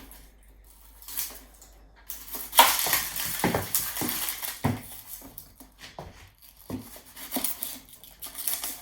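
Metal kitchen utensils clattering and clinking, with a string of separate knocks, starting about two and a half seconds in after a quiet start.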